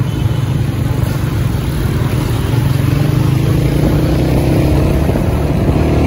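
Busy road traffic: buses, auto-rickshaws and motorcycles running with a steady low engine hum. About halfway through, a nearby engine rises slowly in pitch as it speeds up.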